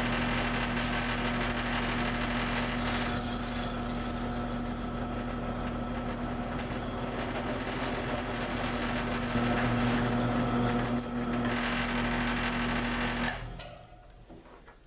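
Milling machine running steadily, a 5/16-inch end mill cutting a keyway slot into a shaft, with a constant motor hum. The machine shuts off about 13 seconds in and the sound drops away.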